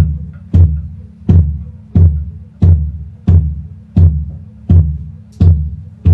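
Banyuwangi kendang drum played on its deep bass head at a sound check, amplified through the PA. It is a steady beat of about one and a half strokes a second, each stroke a low boom that dies away before the next.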